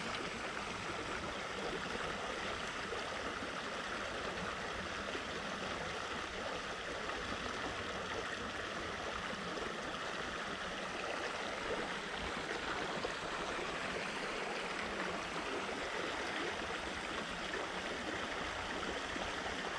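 Shallow, clear trout stream running over a gravel riffle: a steady rushing of water that stays even throughout.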